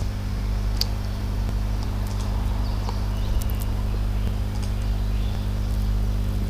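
A steady low hum, with a few faint computer mouse clicks.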